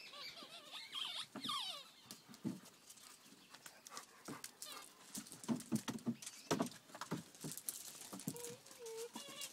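German Shepherd puppies at rough play: scuffling, with paws knocking and scrabbling on plastic toys, a tarp and a wooden pallet, the knocks loudest about six to seven seconds in. High puppy yelps with falling pitch come in the first two seconds, and a short whine comes near the end.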